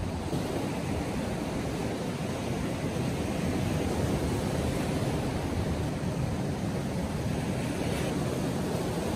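Ocean surf breaking and washing over a rocky shore: a steady rushing noise with no distinct breaks.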